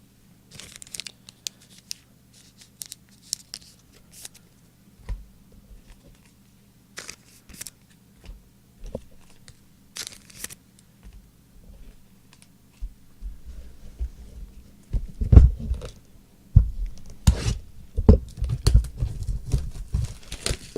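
Trading card packs being torn open and the cards handled: scattered short rustles, tears and clicks, growing louder and busier over the last several seconds with a few low thumps.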